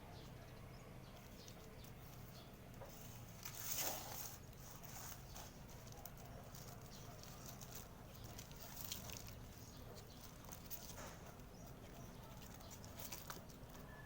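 Birds moving and pecking at a rooftop feeding spot close to the microphone: scattered soft scuffs and taps, the loudest a rustle about four seconds in, over a faint steady background.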